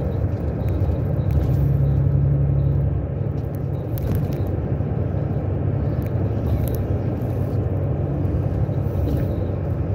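Vehicle driving, heard from inside: a steady low engine and road rumble, with the engine hum a little louder about one to three seconds in.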